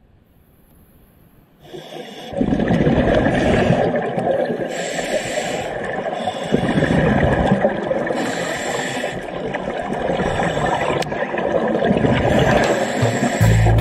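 A scuba diver breathing through a regulator underwater, starting about two seconds in: hissing inhalations alternating with bubbling exhalations, heard through an underwater camera.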